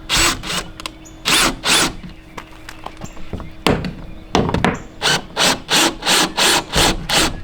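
Power drill boring into plywood in short bursts: two longer runs at the start, then a quick series of about eight short pulses, roughly three a second, in the second half.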